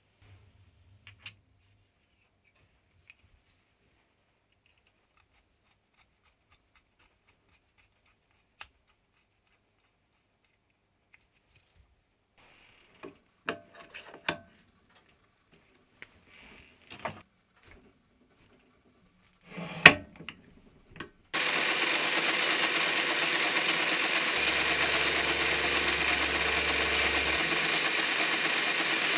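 A few small metal clicks, then clinks and knocks as metal parts and a collet chuck are handled. About three-quarters through, a metal lathe starts abruptly and runs steadily, turning the boring head's body.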